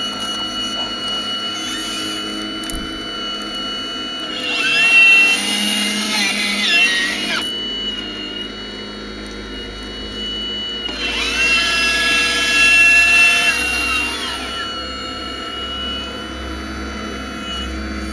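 Electric motors of a remote-control scale model Hitachi Zaxis 870 excavator whining steadily. The whine swells twice into louder stretches of several seconds, rising and falling in pitch as the machine works its arm and swings.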